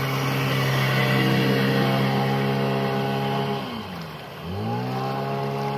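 Two-stroke outboard motor running at high revs. About four seconds in, the revs drop sharply, then climb quickly back up to a steady high pitch.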